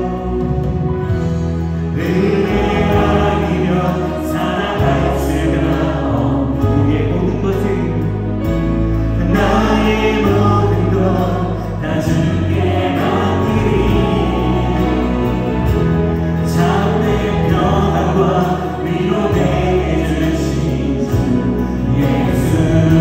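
Worship team singing a Korean praise song live, lead voices with backing singers, over a live band of keyboard, bass, electric guitar and drums.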